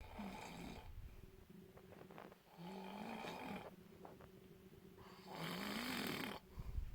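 A person snoring: three snores, each about a second long and roughly two and a half seconds apart, with a buzzing pitch that rises through most of them.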